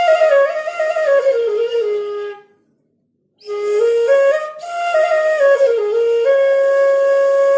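Flute music: a single melody of stepped notes that falls, breaks off into silence for about a second, then climbs again and ends on a long held note.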